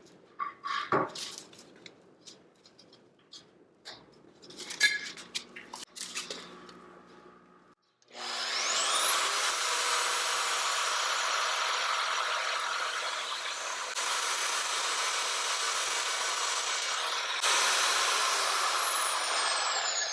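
A few light clicks and knocks of handling, then about eight seconds in the FEIN magnetic drill's motor starts with a rising whine and runs steadily, drilling a hole. Near the end it is switched off and the whine falls as the motor spins down.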